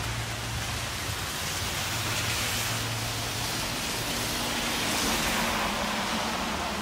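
Steady rain on a wet street, with passing traffic hissing on the wet road; the hiss swells twice.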